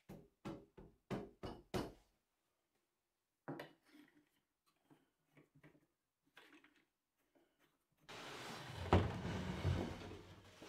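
Wooden knocks and clunks as wooden clamps are set on a cabinet's face frame during a glue-up. About six sharp knocks come in the first two seconds, then scattered lighter clicks and knocks. A steady hiss comes up suddenly near the end, with a couple of louder thumps.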